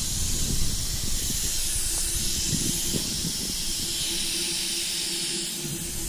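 Compressed air hissing steadily at the fog horn's 1,000-gallon air tank and its hose lines, with a faint steady hum underneath.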